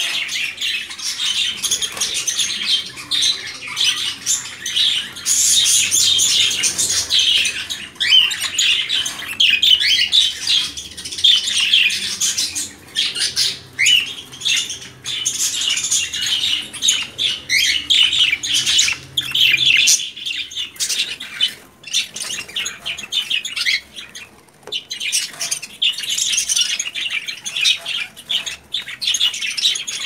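Caged budgies chattering: a dense, unbroken stream of high chirps and warbles from several birds at once.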